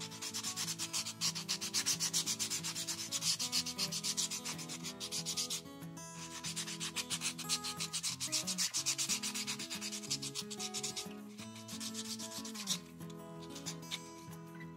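White nail buffer block rubbing back and forth across a bare fingernail in quick strokes, pausing briefly twice. The buffing lightly roughens the natural nail surface so that gel polish will grip.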